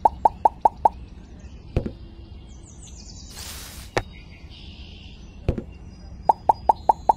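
Quick runs of short plops, about five a second, as toy fruits are set down one after another: one run at the start and another near the end. A few single knocks fall in between, and a short hiss comes about halfway through.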